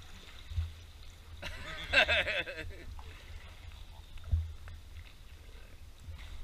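Inflatable canoe being paddled through still water, heard as a low muffled rumble through a waterproof camera housing, with two dull knocks, one about half a second in and one past four seconds. A short wordless voice call around two seconds in is the loudest sound.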